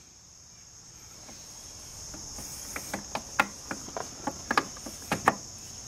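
Irregular light clicks and knocks as a new starter motor is wiggled and pushed side to side to seat it in its bore in a Kawasaki Bayou 220 engine case, the knocks growing more frequent about halfway through. Under it, a steady high chirring of crickets.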